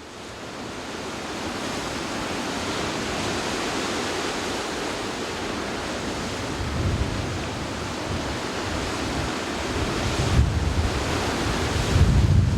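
Steady rushing wind outdoors, with gusts buffeting the microphone about seven seconds in, again around ten seconds, and strongest near the end. It fades in at the start.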